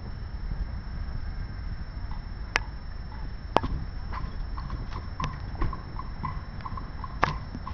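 Wind rumbling on the microphone, with a few sharp clicks and, from about halfway in, a run of short, quick ticks.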